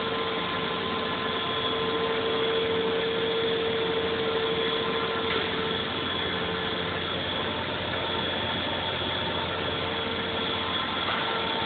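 Steady hum of machine-shop machinery running, a dense even noise with a few held tones through it.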